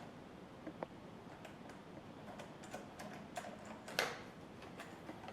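Scattered light clicks and taps of things being handled, with one sharper knock about four seconds in.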